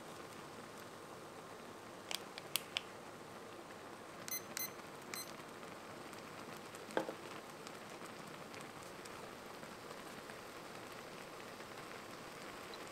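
Mala noodle soup simmering in a foil tray on an electric ceramic cooker, a steady faint bubbling. A few sharp clicks come about two seconds in. A digital kitchen timer gives several short beeps as its buttons are pressed, around four to five seconds in. A single knock about seven seconds in is the timer being set back on its stand.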